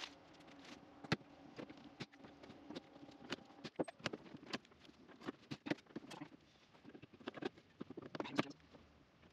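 Hand pop-rivet gun being squeezed repeatedly to set rivets through an aluminum mounting plate: a series of sharp clicks and snaps, loudest about a second in and near the end.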